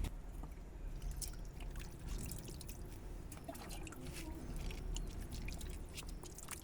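Water dripping and trickling, with many scattered small wet clicks, from a cat being washed in a flea bath.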